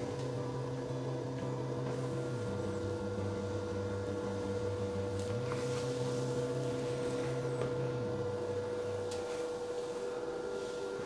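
Steady machine hum from a running motor, with a constant mid-pitched whine over a lower drone; the drone drops out about two seconds before the end while the whine carries on.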